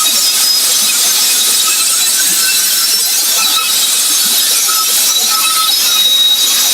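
Concrete saw cutting through a floor slab: a loud, steady, high-pitched grinding hiss with thin whining tones coming and going.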